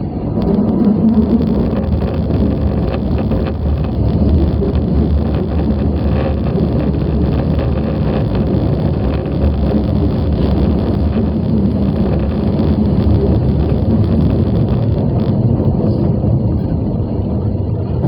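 Osaka Metro 22 series subway train running at speed, heard from inside the leading car: a steady rumble of wheels on rail and running gear.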